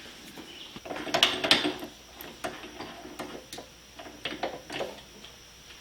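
Irregular clicks and light knocks of metal parts and tools being handled, busiest about one to two seconds in.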